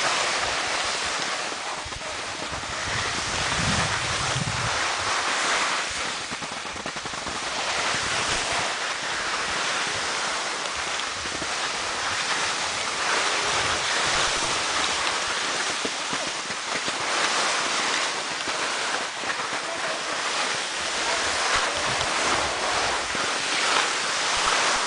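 Skis hissing and scraping over spring snow, a steady rushing hiss that swells and fades, with some wind buffeting the microphone.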